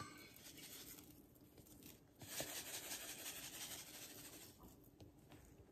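Coarse kosher salt shaken from a cardboard box onto a rack of raw pork ribs: a faint, grainy hiss of falling grains, strongest from about two seconds in until about four and a half seconds.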